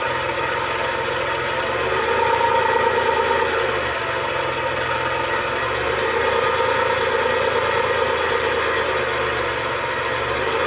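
Suzuki F6A three-cylinder engine idling steadily, its low note shifting slightly a few times.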